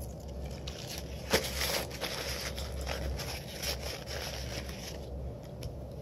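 Close-miked chewing of a mouthful of steak and salad: small irregular crunching and mouth sounds, with one sharp click about a second and a half in.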